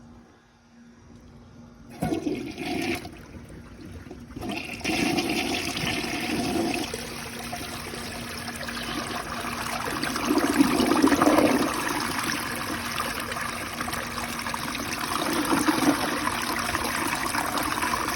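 A toilet flushing a washcloth down. A sharp click about two seconds in, then water rushes into the bowl with several surges and pulls the washcloth through.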